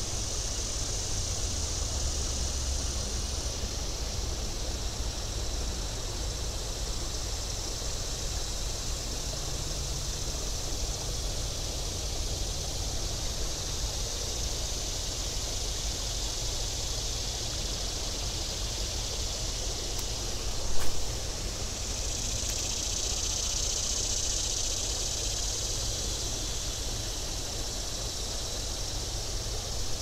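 Steady outdoor creek ambience: a constant rush of flowing water with a high hiss that swells for a few seconds about two-thirds of the way in, over a low rumble. A single sharp knock sounds about 21 seconds in.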